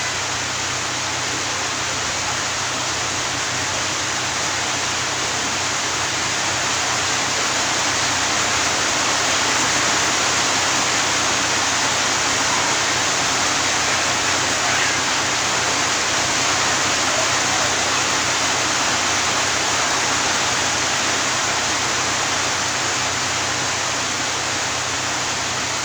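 Steady rushing hiss, even and unbroken, with a faint low hum beneath it.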